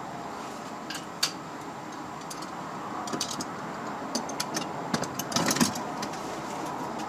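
Light clicks and clinks of hand tools and small door parts being handled, scattered through, with a cluster of rattling about five seconds in, over a steady background hum.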